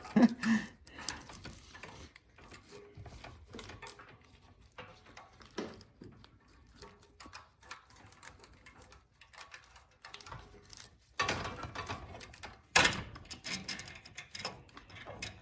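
Scattered light clicks and clatter of small metal engine parts being handled, with a sharper knock about thirteen seconds in.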